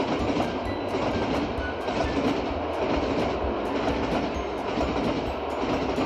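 High-speed (bullet) train running on the track: a steady, loud rushing rumble.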